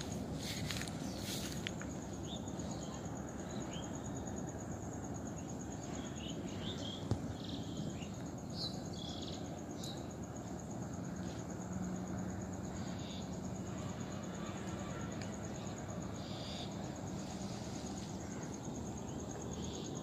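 Evening riverside ambience: a continuous high, finely pulsing trill of insects, with scattered short bird chirps over a steady low rush of background noise.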